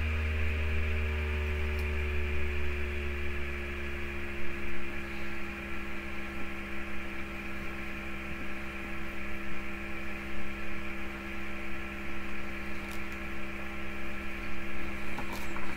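Steady low electrical hum with a few fixed tones above it, under faint chewing of a soft marshmallow.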